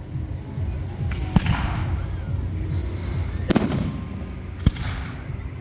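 Aerial fireworks shells bursting: three sharp bangs, about a second in, around the middle, and near the end, the first and last trailed by a brief crackling hiss.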